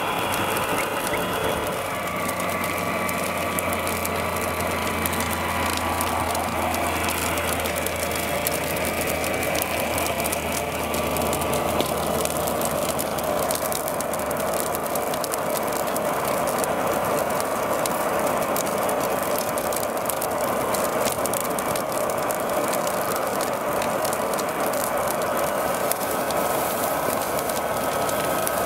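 Steady mechanical whirring and rattling of RC fire-fighting gear at work: small electric motors driving water pumps and an RC LUF turbine fan spraying water mist, with fine crackling throughout.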